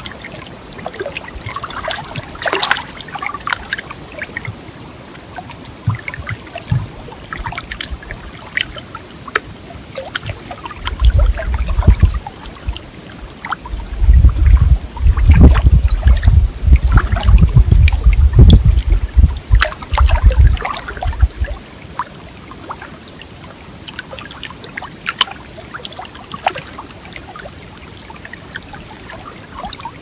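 Small waves lapping and splashing against a lakeshore, with many little splashes. Gusts of wind buffet the microphone with a low rumble about eleven seconds in and again for several seconds from about fourteen seconds.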